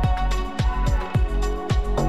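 Background music with a steady beat: a kick drum about twice a second under sustained chords.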